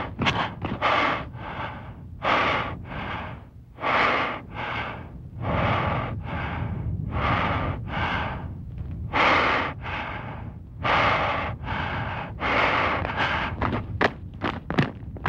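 A man breathing hard, loud ragged in-and-out panting in pairs about every second and a half, as from exertion walking uphill over rough ground. Near the end come a few sharp footsteps on stony ground.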